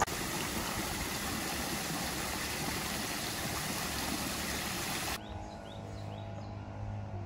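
Water pouring from a row of spouts in a stone wall and splashing into a shallow channel, a steady rushing hiss. It cuts off about five seconds in, leaving quieter open air with a few faint chirps.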